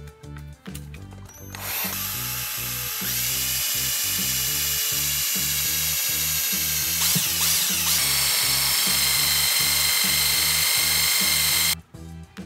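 Cordless drill with a small twist bit boring a hole into the head of a stripped hex socket bolt, beside the rounded-out socket, so that a flat screwdriver can be wedged in to turn it out. The drill whines steadily for about ten seconds, its pitch stepping up early on and shifting again past the middle, then stops abruptly near the end. Background music with a steady beat underneath.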